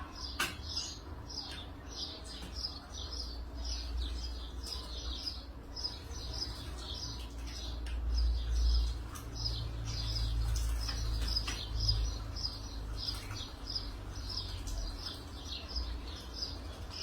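Small wild birds chirping in a steady run of short, high chirps, a few each second, with a low rumble underneath.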